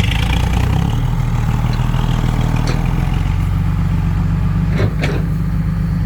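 Vehicle engine running steadily at a low rumble, its note shifting about a second in, with a couple of brief knocks near the end.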